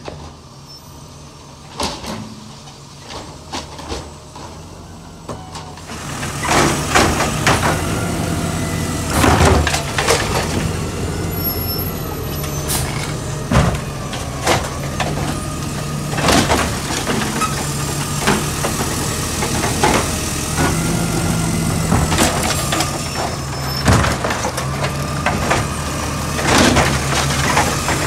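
Automated side-loader garbage truck at work: its diesel engine running and getting louder from about six seconds in, with a wavering hydraulic whine and repeated clanks and bangs from the lifting arm and carts.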